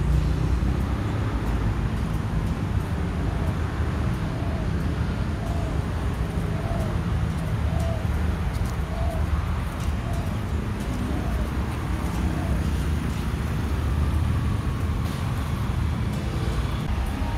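Steady low rumble of road traffic. Through the middle a faint short note repeats about once a second.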